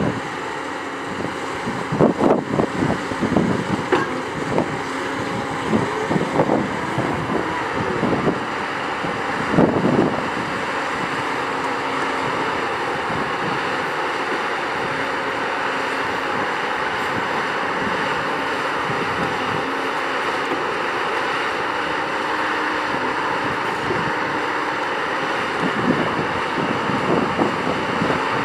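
Doosan DX 235LC-5 crawler excavator working: its Doosan DL06P diesel engine and hydraulics run steadily with a held hum while the machine swings and digs. Irregular knocks and scrapes through the first ten seconds and again near the end, with wind on the microphone.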